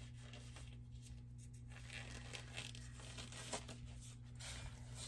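Gloves being pulled onto the hands: faint, irregular crinkling and rustling over a steady low hum.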